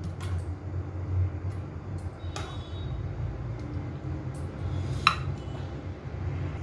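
Metal ladle clinking and scraping against the pan and serving bowls as curry is ladled out: a handful of sharp clinks, the loudest a short ringing clink about five seconds in, over a steady low hum.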